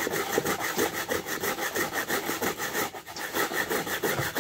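Coconut being grated by hand: quick, even scraping strokes, about six a second, with a short break about three seconds in.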